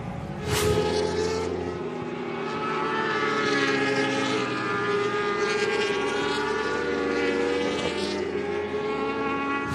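Several racing motorcycle engines running at high revs as a group of superbikes goes through a corner, a steady engine note with several pitches at once. A brief sharp noise sounds about half a second in, where the sound grows louder.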